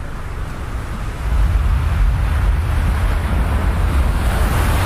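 Ocean surf: a deep, rushing rumble of waves that swells about a second in and holds.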